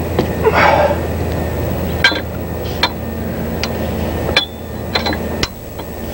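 Steel hand tools clinking and tapping as a combination wrench, socket and pulley holder are handled on a camshaft timing pulley bolt: a short scrape under a second in, then a string of six or so light metal clinks. A steady low hum runs underneath.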